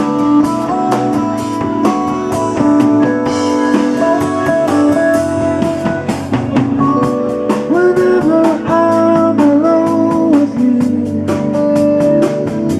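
Live band playing an instrumental passage with no vocals: a melody line over a steady drum beat, with guitar.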